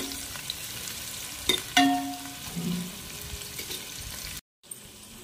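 Sliced onions sizzling in hot oil in a metal pan as they fry toward golden, with a metal spoon stirring and scraping through them. The spoon clinks against the pan about one and a half seconds in, and the sound drops out briefly near the end.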